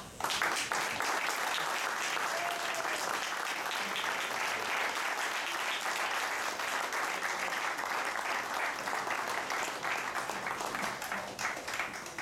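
Audience applauding, a dense patter of many hands clapping that starts suddenly and dies down near the end.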